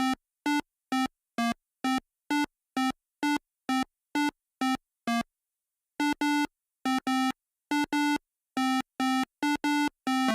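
A simple synthesizer melody of short, clipped electronic beeps. It plays about two notes a second, pauses briefly, then carries on with quicker notes and a few held ones, shifting in pitch near the end.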